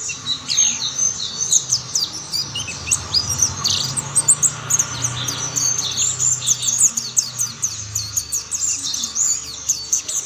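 Mountain white-eye (pleci montanus) singing: a fast, continuous high twittering of short chirps and trills. A faint low hum runs underneath.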